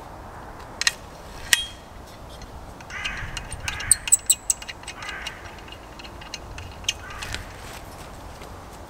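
Two sharp wooden knocks about a second in, then a quick run of metallic clicks around four seconds in as a large folding saw is swung open and its blade locks, with short rasps of handling and clothing around it.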